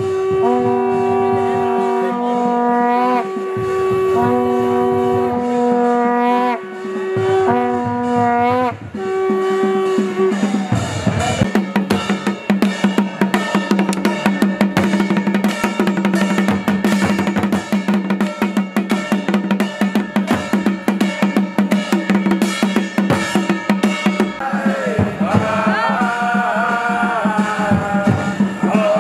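Conch shell blown in several long held blasts, some ending with a slight bend in pitch, over the first nine seconds. Large barrel drums beaten with sticks then take over in a fast, steady rhythm, and near the end a group of voices joins in a call-and-response kirtan chant over the drums.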